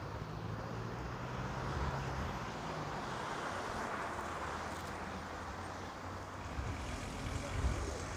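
Road traffic on the street alongside: a car going by, its sound swelling around the middle and fading again, over a low steady hum.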